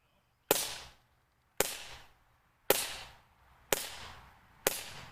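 Five sharp snaps about a second apart from a Crosman 1911BB CO2 BB pistol as its trigger is pulled, each with a short fading tail. The CO2 cartridge may not yet have been pierced.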